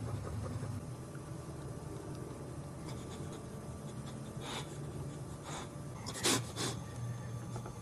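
A boxer in labour breathing heavily, with a few short noisy breaths in the second half, the loudest about six seconds in, over a steady low hum.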